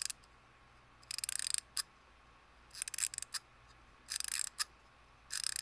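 Click sound effects: four quick rattles of clicks, each followed by a single sharper click, repeating about every one and a half seconds.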